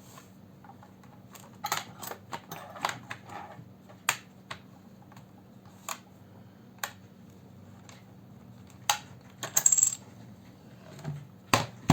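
Plastic keyboard latches of an Asus Eee PC 1015BX netbook being pried and snapping free: a scattered series of sharp small clicks and snaps, a quick cluster of them a couple of seconds in, and a short scraping rattle about ten seconds in.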